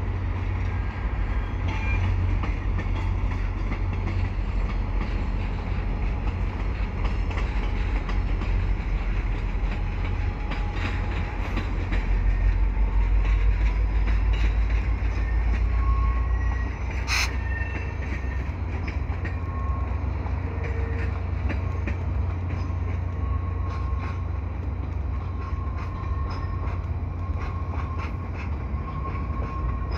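VIA Rail F40PH-2D diesel locomotive passing with its EMD 16-cylinder two-stroke engine running in a deep rumble, loudest a little before halfway as the locomotive goes by. The passenger coaches follow, rolling over the rails with faint on-and-off wheel squeal on the curve, and one sharp clank just past halfway.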